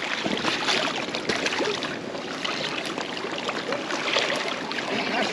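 Lake water splashing and lapping against breakwall rocks while a hooked lake trout is netted at the surface.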